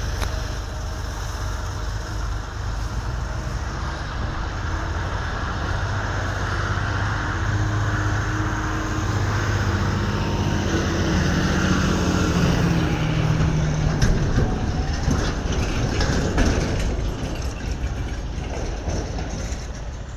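Diesel tractor engine running steadily, its note rising a little around the middle and easing off again.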